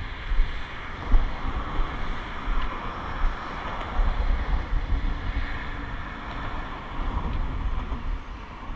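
Wind buffeting the microphone in irregular low gusts, over a steady rush of traffic crossing the highway bridge.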